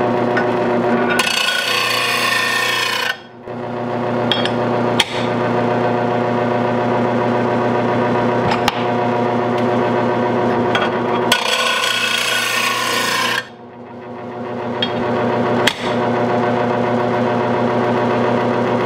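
Electric mower-blade sharpener's motor running with a steady hum, while a steel lawn mower blade is ground on it twice, each pass a harsh grinding of about two seconds, one near the start and one about halfway through. Metal is being taken off the heavy side of the blade to balance it. A few sharp knocks come in between.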